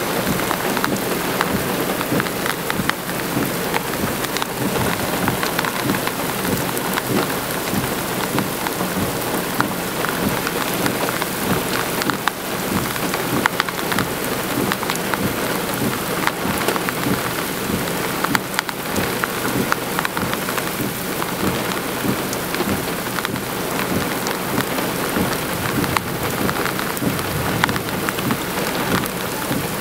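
Heavy rain falling on a car, a dense, steady patter of drops on the body and windows.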